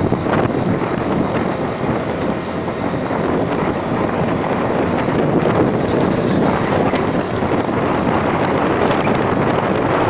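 Steady rumbling noise of a vehicle riding uphill, with wind buffeting the microphone and scattered light knocks from the rough ride.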